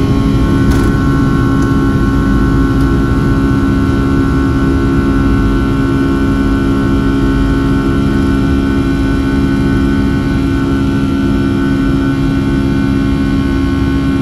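Boeing 757-200's Rolls-Royce RB211-535E4B turbofans running at takeoff thrust through the takeoff roll and lift-off, heard from inside the cabin: a loud, steady engine sound with several strong held tones over a deep rumble. A faint tick about a second in.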